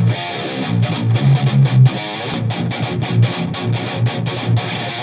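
Distorted electric guitars played through Mesa/Boogie amplifiers: a rhythmic low chugging riff broken by many short, sharp stops.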